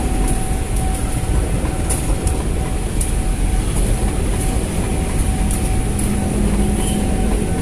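JR 205-series electric commuter train passing at close range, its wheels on the rails making a steady rumble broken by short clacks.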